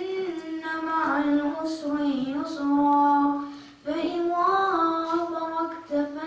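A boy chanting Quranic recitation into a microphone in long, melodic phrases with drawn-out held notes, pausing briefly for breath between phrases.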